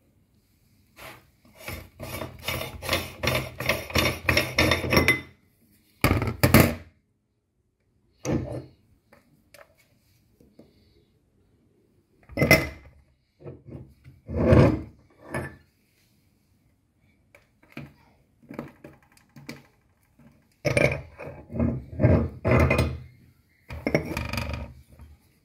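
Metal meat grinder parts being taken apart by hand: the cutting plate and knife knock, scrape and clank against each other, the wooden base and the steel tray. A run of rapid knocks lasts about three seconds, followed by scattered single clanks and a last cluster of knocks near the end.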